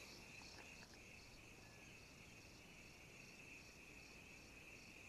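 Faint insect chorus: a steady high buzz with a higher, pulsing layer above it.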